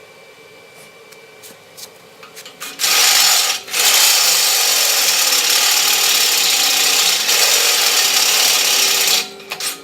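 Corded electric drill boring into steel with a new bit. After a few quiet seconds it makes a short burst of cutting, pauses briefly, then cuts steadily for about five seconds before stopping near the end.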